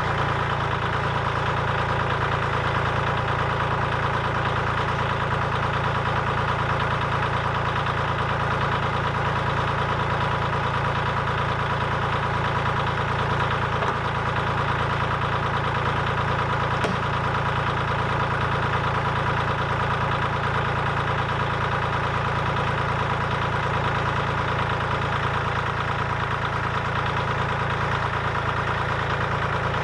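Compact tractor's engine idling steadily.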